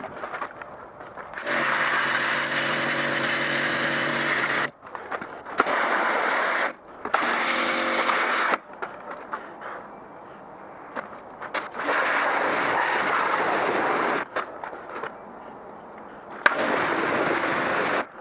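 Pressure washer spraying in bursts: each squeeze of the trigger starts the pump and a hissing water jet, then cuts off. There are five bursts of one to three seconds, with a steady motor hum under the first.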